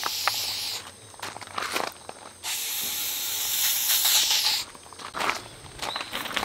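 Aerosol insect-repellent spray hissing from the can: one short spray at the start, then a longer spray of about two seconds aimed at the camera to drive off gnats. A few short knocks sound between the sprays.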